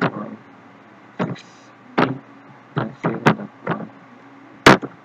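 Laptop keyboard keys tapped one at a time while an address is typed: about eight separate sharp clacks at an uneven pace, the loudest near the end.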